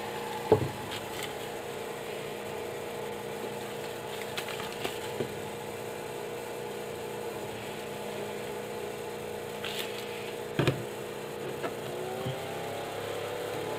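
A 24-volt, 0.4 A, 120 mm axial cooling fan running at 12 V, half its rated voltage, with a steady whirring hum. There are two brief knocks, about half a second in and near the end. In the last second or two the pitch rises as the supply is turned up toward 24 V and the fan speeds up.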